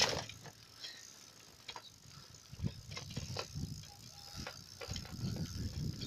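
A two-wheeler riding along a rough dirt track, with scattered clicks and knocks and a low rumble that grows louder in the second half.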